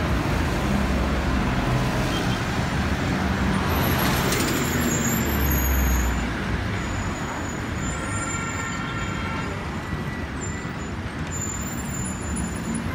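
Road traffic passing close by: minibuses and cars driving past with engine and tyre noise. A heavier vehicle's low engine rumble swells up and fades about four to six seconds in.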